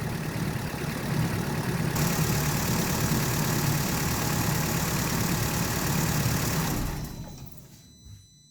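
Car engine idling under electrical load, with a steady hiss that grows louder about two seconds in. About seven seconds in the engine is switched off and the sound dies away within a second, so the alternator stops charging.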